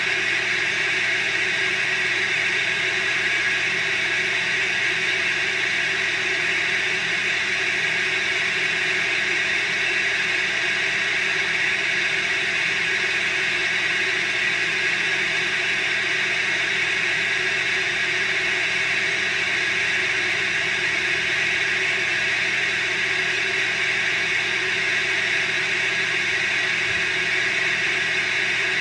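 Steady, unchanging shaped noise, a constant hiss and whir that does not vary in level or colour, the kind of masking noise a subliminal audio track is built on.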